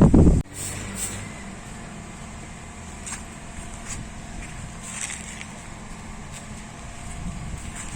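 A louder sound cuts off abruptly about half a second in, leaving a steady low background hum with a few faint clicks.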